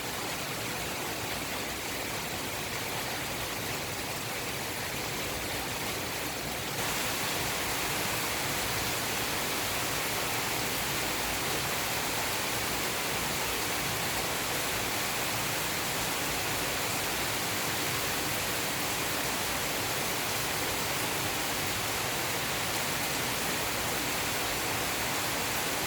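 Heavy rain falling as a steady, dense hiss. About seven seconds in it abruptly becomes louder and brighter, then holds steady.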